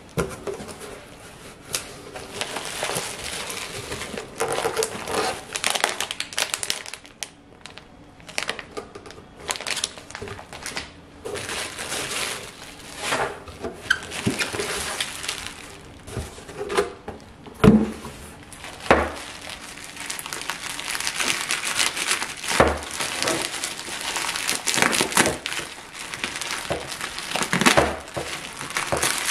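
Plastic bubble wrap and foil bubble packaging crinkling and rustling as it is handled and pulled from a cardboard box, in irregular bursts with a few sharp knocks partway through.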